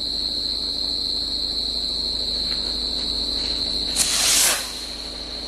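Small Standard Fireworks sky rocket launching: a sudden, loud whooshing hiss about four seconds in, fading within about half a second. Crickets chirp as a steady high-pitched drone throughout.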